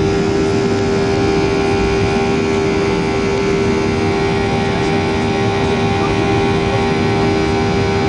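Boeing 737-800's CFM56 jet engines at takeoff thrust, heard inside the cabin during lift-off and initial climb. A loud, steady engine sound with a strong steady hum.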